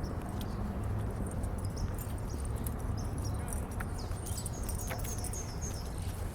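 Outdoor city-park ambience: a steady low rumble with scattered high, falling bird chirps and a horse's hooves clopping.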